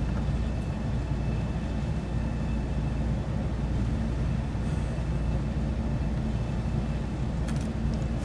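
Steady low droning hum with even, unchanging tones, and a couple of faint light clicks near the end.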